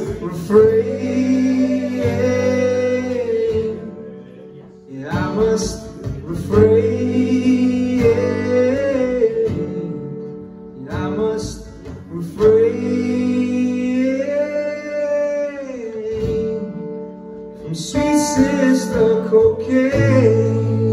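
A man singing long, drawn-out phrases with no clear words over his own acoustic guitar, the chords ringing underneath.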